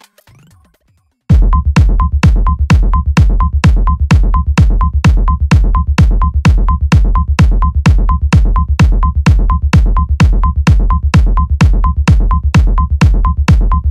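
Electronic dance music with a heavy bass kick at about two beats a second, starting suddenly about a second in after near silence.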